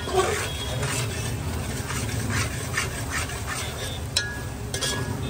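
A steel spoon stirs and scrapes sliced onions and whole spices around an aluminium pot in repeated strokes, with a couple of sharper metal clinks about four and five seconds in.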